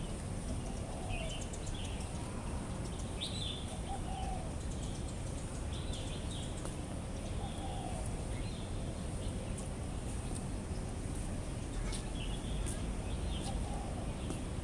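Birds calling over a steady low rumble of background noise: short high chirps scattered through, and a lower short call repeating every three to four seconds.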